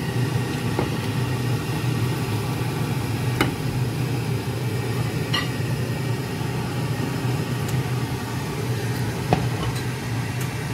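A steady low mechanical hum, with a few faint clicks as a pan of curry is tipped and emptied into a glass dish.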